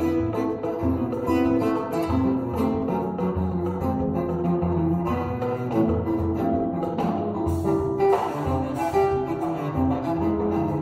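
A cello, acoustic guitar and drum kit playing a choro together, the cello carrying the melody over the guitar's plucked accompaniment and light drums.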